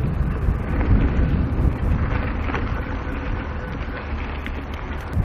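Wind buffeting an action camera's microphone while riding a mountain bike on dirt singletrack: a steady, heavy rumble with a few sharp clicks and rattles from the bike.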